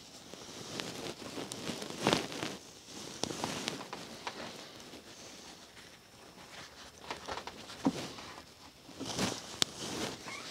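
Paper towel rustling as it wipes around the base of a grinder column being epoxied into its casting, with scattered light knocks and clicks of hands and parts against the metal; a sharper knock about two seconds in and a few more near the end.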